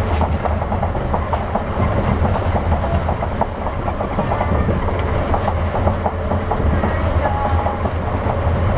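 Interior running sound of an Osaka New Tram 200 series, a rubber-tyred automated guideway train, heard from the car floor while under way. A steady low hum and rumble carries frequent small clicks and rattles.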